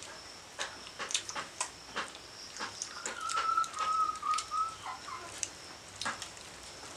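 Small sharp clicks and taps of fingers mixing rice against steel plates, over a faint steady high whine. About three seconds in, a wavering whistled call lasts nearly two seconds.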